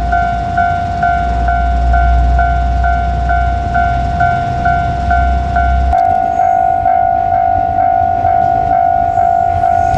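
Japanese level-crossing warning bell ringing steadily, about two strokes a second, over the low rumble of a passing train. About six seconds in the sound changes abruptly: the rumble drops away and the bell rings on at a slightly higher pitch.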